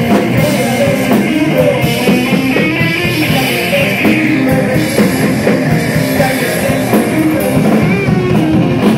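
Live blues-rock band playing loud: distorted electric guitar over a drum kit with crashing cymbals.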